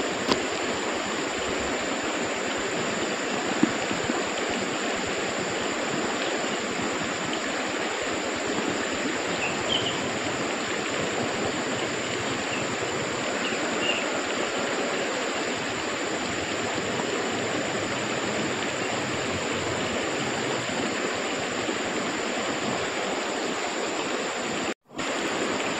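Steady rushing hiss of flowing stream water, even and unbroken, cutting out for a moment just before the end.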